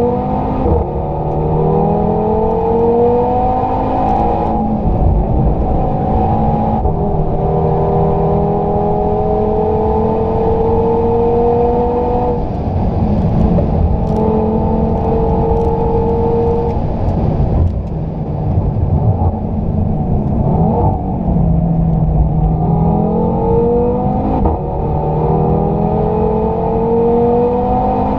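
2016 Audi TT RS's turbocharged five-cylinder with sport exhaust, heard from inside the cabin on hard track acceleration. The pitch climbs and then drops sharply at repeated gear changes, with one long pull in the middle and a brief lift about two-thirds of the way through before it builds again.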